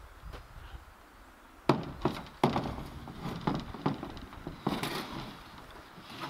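A string of sharp, irregular knocks and clatters on a canoe hull, over a low steady rumble.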